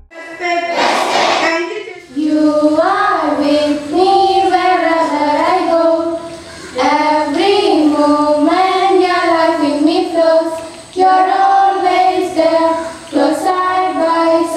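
Schoolchildren singing a prayer song together, led by girls into a microphone and carried over loudspeakers. A brief burst of rushing noise comes about a second in, before the singing starts.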